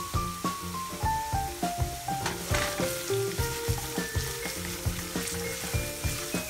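Cucumber strips in seasoning liquid sizzling gently in a frying pan over low heat while being stirred with chopsticks. Background music with a steady beat and a falling melody plays over it.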